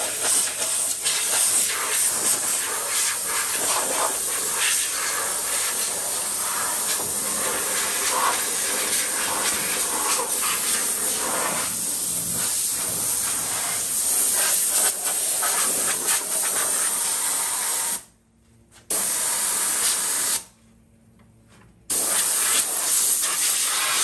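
Compressed-air blow gun hissing as it blows sanding dust off the sanded chrome grille and bumper, stopping briefly twice near the end.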